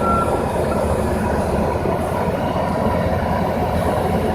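Heavy asphalt-milling machinery running: a steady, loud diesel rumble with clatter. A reversing alarm's beep ends just after the start.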